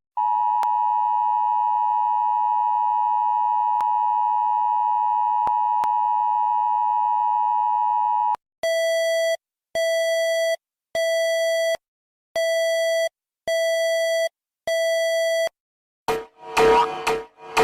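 Recreated emergency-alert tones: first the steady two-tone iPhone-style emergency alert sound used for United Kingdom alerts, held for about eight seconds. Then six short, buzzy beeps about a second apart, Indonesia's alert, and near the end a wavering, sliding siren-like tone begins.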